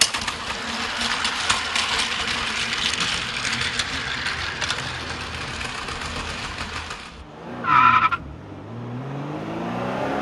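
Plarail toy train running on plastic track, its small motor and gears whirring with a fast rattle of clicks, cutting off abruptly about seven seconds in. Then a brief tire screech, the loudest moment, and a car engine revving up.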